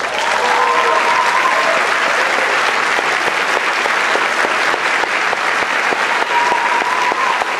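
Audience applauding steadily after an orchestral piece ends, with two brief held calls over the clapping, one near the start and one near the end.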